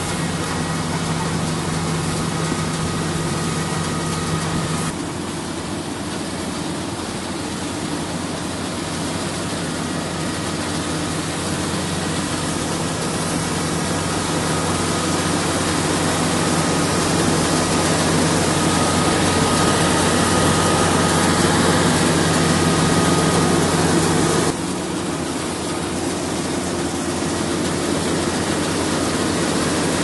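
Fieldking combine harvester running steadily as it cuts grain: a low engine hum under a dense mechanical rush. The sound shifts abruptly about five seconds in and again near the end.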